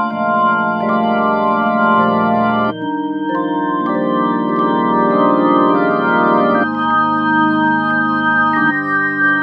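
Organ music: sustained chords held for a few seconds each, changing three times.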